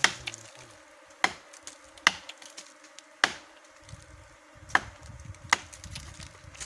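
A knife blade chopping into a living tree trunk, about six sharp blows roughly a second apart, as the trunk is cut open to get at a wild bees' nest. A faint steady buzz of bees runs underneath.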